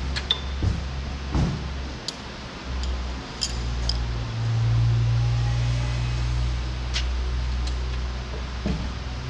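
A steady low machine hum that swells a little around the middle, with a handful of light metallic clicks and taps as hydraulic hoses and their fittings are handled on a front loader.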